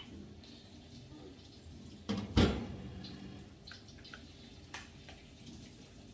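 Kitchen items being handled: one sharp, loud knock about two and a half seconds in, then a few light clicks and taps over a low steady background hum.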